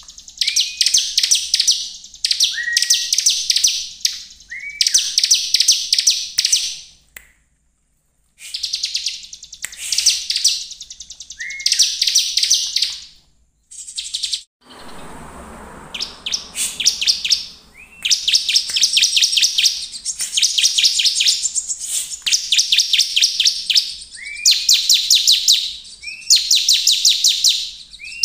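Bar-winged prinia (ciblek) singing: phrases of rapid, high chipping notes, each a second or two long and many opening with a short rising note, repeated with brief pauses. It goes quiet for about a second twice, near the quarter mark and about halfway, then sings phrase after phrase.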